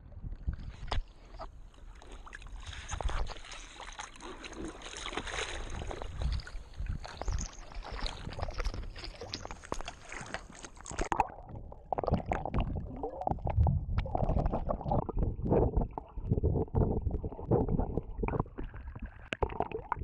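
Water sloshing and splashing against a surfboard paddled at sea, close to the microphone, in a steady irregular wash. About eleven seconds in, the sound turns duller and lower.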